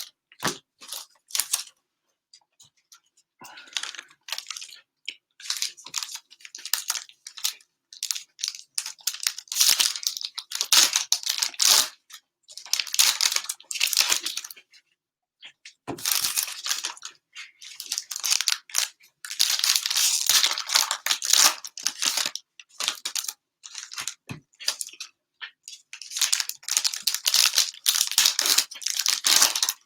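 Plastic cellophane wrappers of trading-card cello packs being torn open and crinkled by hand, in irregular crackling bursts.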